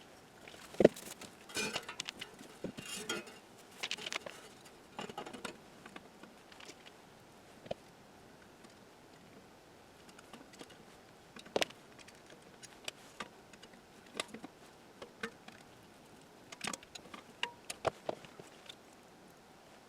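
Irregular clicks, taps and short scrapes of small parts and tools being handled on a workbench, with a sharper knock about a second in.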